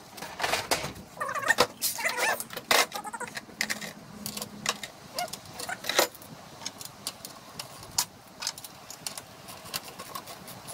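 Metal hand tools and sockets clinking and clattering on a workbench as a socket set is handled, followed by scattered sharp tool clicks.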